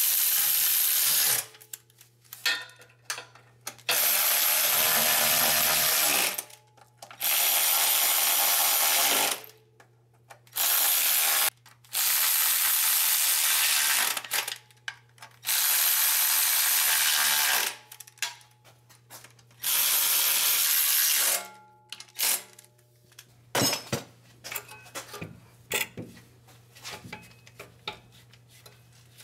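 Power tool driving the transmission oil pan bolts back in, in about seven runs of roughly two seconds each, with light clicks and rattles in the gaps and near the end. A steady low hum runs underneath.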